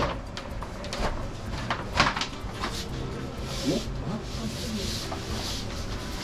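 Hands pressing and smoothing a rigid vinyl wall panel onto double-sided tape on the wall. There are a few sharp knocks, one right at the start and another about two seconds in, with softer taps between them. Later come brushing swishes of palms rubbing across the panel's surface.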